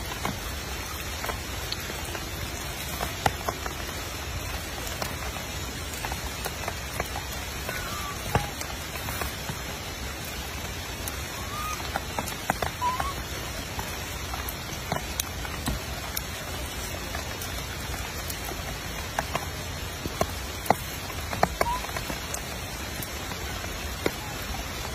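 Steady light rain with many scattered sharp drips and taps, and a few short chirps.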